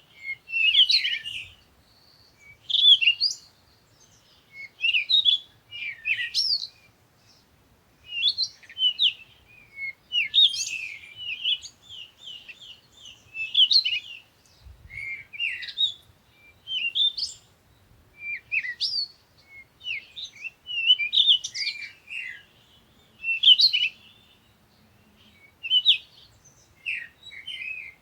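Songbirds chirping: quick runs of high-pitched chirps in short bursts, one every second or two, with brief pauses between them.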